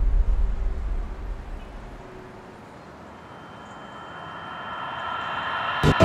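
Edited sound effects: a low rumble fades away, then a noise with faint steady tones swells steadily louder and ends on a sharp hit just before the next scene.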